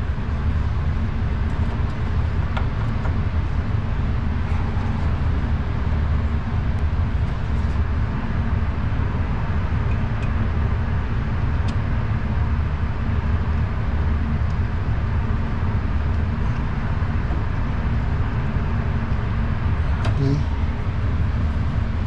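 Hitachi refrigerator compressor running with a steady low hum. It has started again after its overload protector saved it from being plugged into the wrong voltage.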